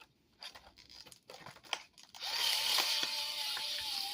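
Ryobi USB power cutter. A few handling clicks come first, then about two seconds in its small motor starts and runs with a steady whine and hiss as the blade cuts open cardboard packaging.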